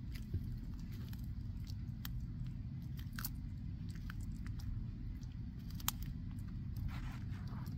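Sulcata tortoises biting and chewing cactus pads: scattered sharp crunches as their beaks tear into the pads, the loudest about six seconds in, over a steady low rumble.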